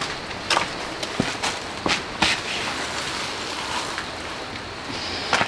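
Loose grit and small stones being scraped together by hand on a concrete slab: a few sharp clicks and scratches over a steady hiss.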